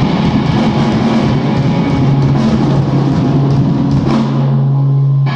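Live rock band playing, with drum kit and electric guitars. About four seconds in the drums and cymbals drop away and a low chord is held for about a second, then cut off.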